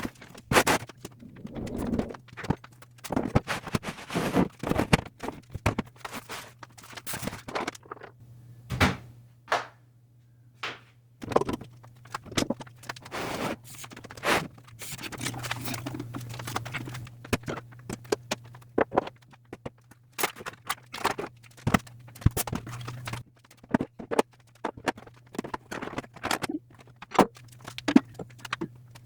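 Irregular knocks, thuds, clatters and scrapes of objects being picked up, shifted and set down while clearing shelves, over a low steady hum.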